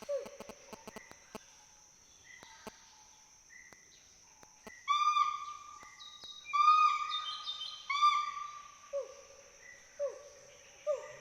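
Western hoolock gibbon calling: a few faint falling hoots at first, then three loud whoops in the middle, followed by a run of short falling hoots about once a second near the end. A steady high hum runs behind.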